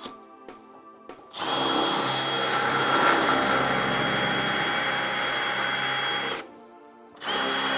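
Electric drill running for about five seconds, boring out a too-small bolt hole with a dull bit, stopping, then starting again near the end.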